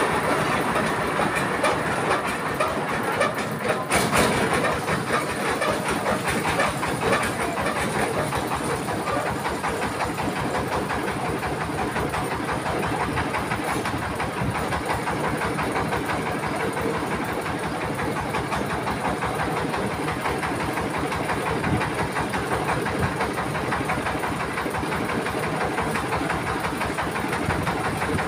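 Mobile rice mill running steadily: its engine drives the belt-driven rice huller and polisher, making a continuous mechanical noise with a fast engine beat. A brief louder clatter comes about four seconds in.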